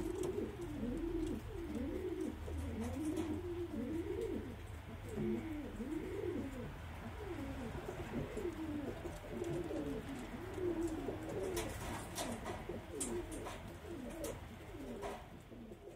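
Domestic pigeons cooing continuously, several wavering coos overlapping one another, with a few short clicks near the end.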